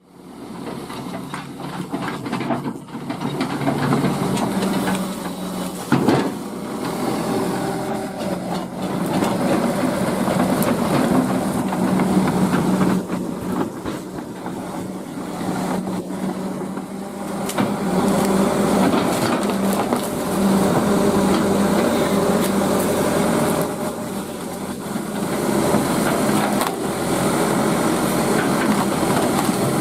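Excavator's diesel engine running steadily under load, with irregular cracking and crunching of wood and brush as the machine breaks through vegetation. A loud sharp impact comes about six seconds in.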